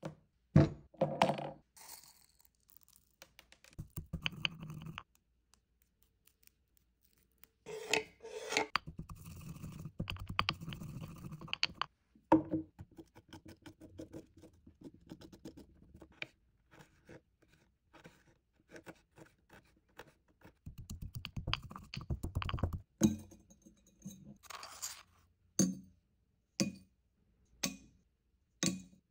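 Food-preparation sounds: a spoon scraping the skin off fresh ginger on a wooden chopping board in a run of short strokes, among other scraping noises and short taps and knocks of utensils.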